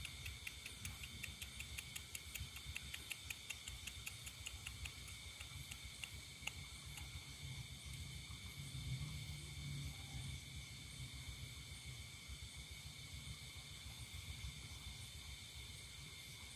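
Night chorus of crickets and other insects trilling steadily at several high pitches, with a quick pulsing call of about four pulses a second that fades out about halfway through.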